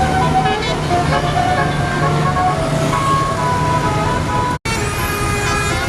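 Multi-tone telolet air horn on a tour bus playing a tune of held notes over the bus's running engine. The sound cuts out for a moment about three-quarters of the way through.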